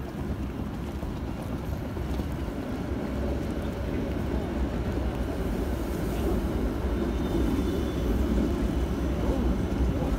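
City street noise: a steady low rumble of traffic that grows slowly louder.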